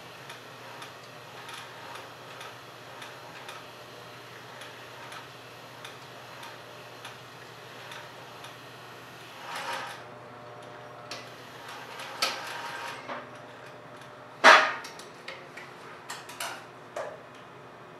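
Singer industrial sewing machine stitching slowly along a backpack seam, each stitch a soft tick about twice a second. The stitching stops about halfway, followed by handling noise, a single sharp knock (the loudest sound) and a few clicks.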